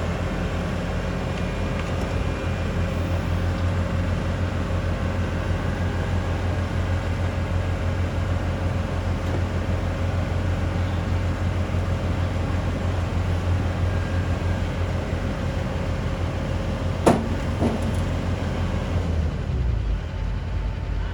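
Engine running steadily with a low drone, with a sharp clank about 17 seconds in and a lighter one just after; the engine note drops near the end.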